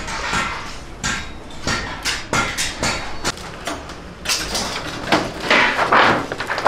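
Thin metal sheet clattering and rustling as it is handled and unrolled over a plastic tarp, with scattered knocks and a louder scraping stretch about five seconds in.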